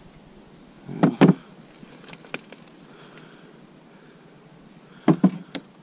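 A few short, hard knocks and clunks: two close together about a second in, a light click a little later, then a quick run of three near the end.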